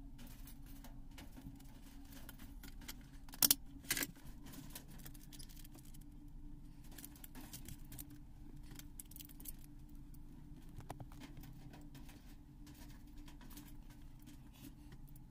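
Light clicks and taps of hands handling multimeter test probes and a neckband Bluetooth earphone's wires on a hard tabletop, with two sharper clicks close together a few seconds in, over a steady low hum.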